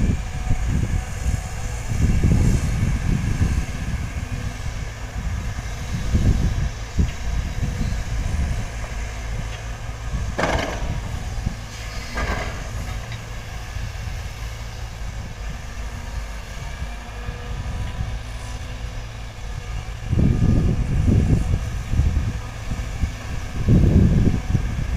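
Caterpillar hydraulic excavators' diesel engines running, surging louder several times as they dig and swing under load. About halfway through come two short higher-pitched sounds, a couple of seconds apart.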